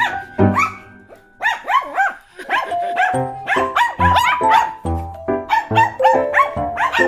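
Shih Tzus barking repeatedly and excitedly at a cat, with a short lull about a second in, over background music with a steady beat.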